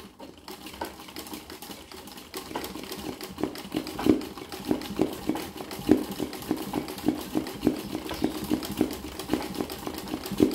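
Sewing machine stitching free-motion embroidery, the needle clattering rapidly through fabric stretched in an embroidery hoop. It grows louder over the first few seconds, with stronger knocks about twice a second.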